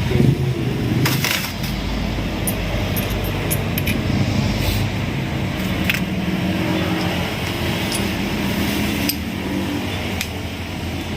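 An engine running steadily with a low hum, with light metallic clinks scattered over it.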